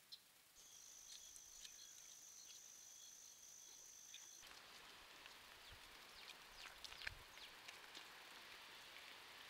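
Faint outdoor trail-camera sound. For the first few seconds an insect trills steadily on a high note. It then switches abruptly to a hissing haze with scattered small clicks and a single soft thump about seven seconds in.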